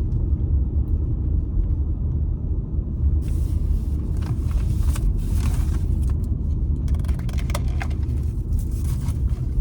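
Steady low rumble of a car heard from inside the cabin, with rustling and a few short clicks from about three seconds in.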